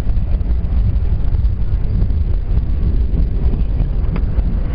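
R68 subway car running on the rails as it pulls into a station, heard from inside the car: a loud, steady low rumble of wheels and running gear. About four seconds in there is a brief, sharp higher-pitched sound.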